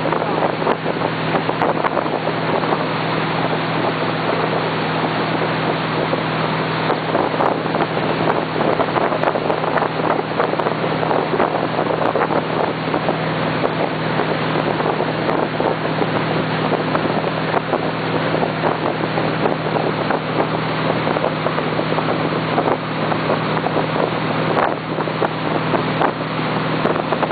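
Motorboat engine running at a steady towing speed, a constant low drone, with wind buffeting the microphone and the wake's water rushing.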